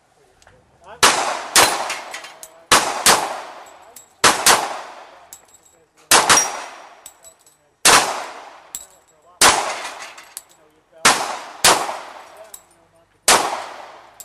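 A string of about a dozen gunshots fired at steel plates in a timed plate-shooting run, spaced unevenly, some in quick pairs about half a second apart, each with a trailing echo.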